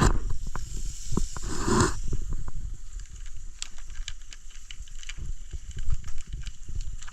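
Food sizzling in melted butter in a hot pan. A loud hiss comes for the first two seconds, then dies to a faint sizzle, with light knocks of the pan and utensils and a low rumble of wind on the microphone.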